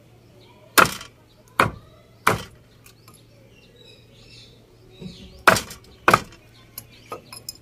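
Cleaver chopping chicken feet on a lightweight wooden board that bounces under the blows. Three sharp chops in the first two and a half seconds, two more about three seconds later, then a few lighter taps near the end.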